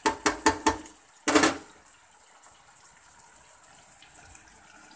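Metal tongs clacking against a frying pan, four quick clacks, then a louder clatter about a second and a half in, over the steady sizzle of beef stir-frying in sauce.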